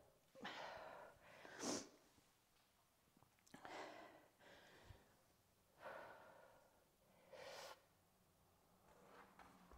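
Faint, heavy breathing of a person under exertion during kettlebell drags: short, sharp breaths in and out every second or two.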